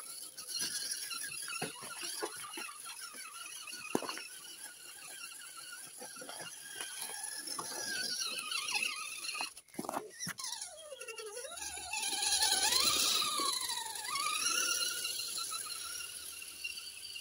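Whine of a Carson RC rock crawler's electric motor and gears, rising and falling in pitch with the throttle, over the clicking and crunching of its tyres on stones and dry leaves. In the second half the whine swoops down and back up several times and is at its loudest.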